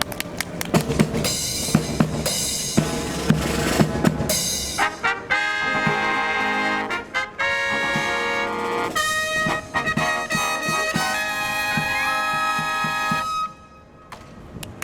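Brass band with drums playing a fanfare: several drum strokes first, then held brass chords with trumpets and trombones. It ends on a long final chord that cuts off about a second and a half before the end.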